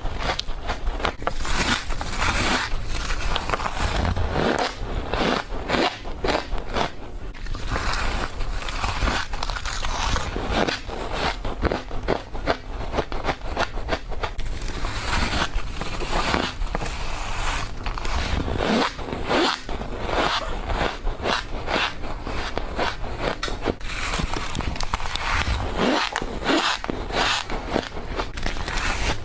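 Frost ice being bitten and crunched in quick succession: a dense, continuous stream of crisp crackles and scraping crunches.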